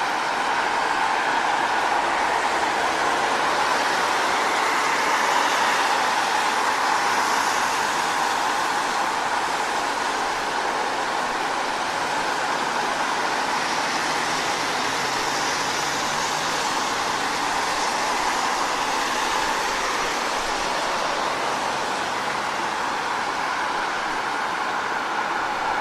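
Car tyres hissing on a wet road while driving: a steady wash of spray and road noise that swells slightly a few times.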